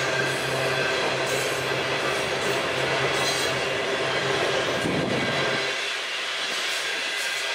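A freight train of coal cars rolling past: steady wheel-on-rail rolling noise with a clickety-clack. The low rumble drops away about six seconds in while the rolling noise goes on.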